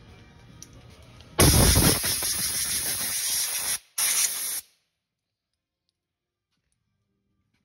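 Compressed air hissing in two blasts: a loud one about two and a half seconds long, then a short one after a brief break. It cuts off suddenly to dead silence.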